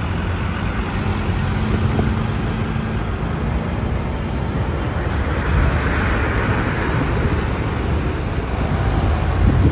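Road traffic driving past, a steady rumble of engines and tyres, with a bus passing close and the sound growing louder near the end.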